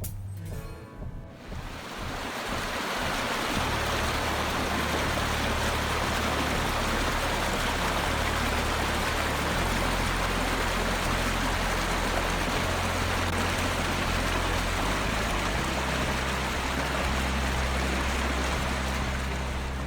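Background music of sustained low notes that change every few seconds, under a steady rushing hiss that swells in over the first two seconds.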